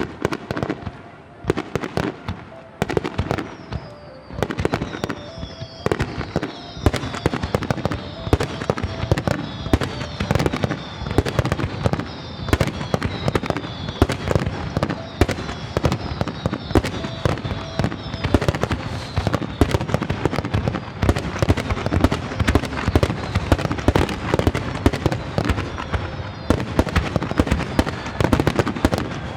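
Fireworks display: a rapid, unbroken barrage of shell bursts and crackling, with many whistles falling in pitch from a few seconds in. It grows denser and louder toward the end.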